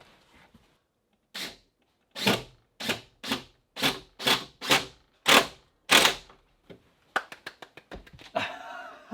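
A hammer driving a nail into wood: about nine hard blows, roughly two a second, each ringing briefly, followed by a few light taps.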